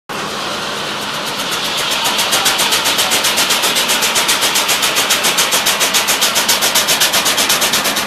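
Stationary steam engine driving a sawmill, running with steam hissing out in quick even puffs. A steady hiss at first breaks into a beat within about the first two seconds, then settles at about six or seven puffs a second.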